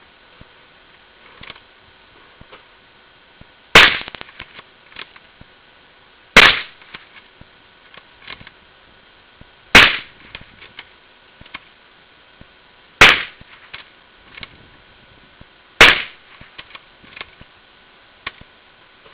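Five gunshots, each a sharp crack with a short tail, spaced about three seconds apart. Faint small clicks and knocks sound between the shots.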